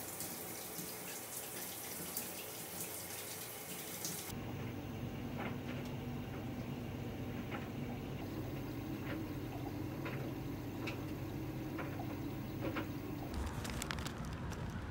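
A shower running, an even hiss of water, for about four seconds. Then an LG front-loading clothes dryer running with a steady low hum and scattered light clicks from the tumbling load. Near the end this gives way to outdoor background noise.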